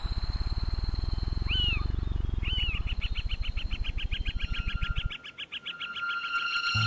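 Layered film sound effects: a fast, even low throbbing under high steady whistling tones, with chirps that quicken into a rapid trill. The throbbing cuts off suddenly about five seconds in.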